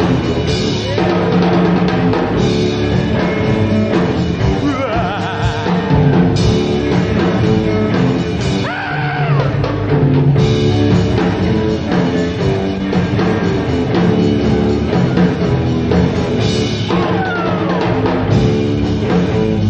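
A rock and roll band playing an instrumental live, with lead guitar over bass and a drum kit. The lead line bends and slides in pitch.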